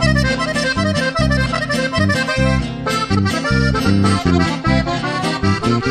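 Accordion playing an instrumental fill between sung verses, opening with a falling run, over a steady bouncing bass line and strummed guitar.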